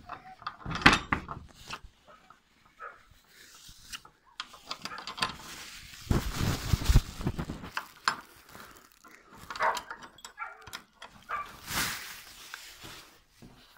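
Handling noises at a wooden rabbit hutch: irregular knocks, rattles and rustling as the hutch is opened and food is put in, with a louder scuffling stretch about halfway through.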